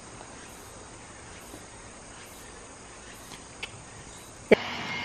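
Outdoor woodland ambience with faint, repeated high-pitched insect chirping. Near the end a sharp click, then a louder steady noise with a thin high tone takes over.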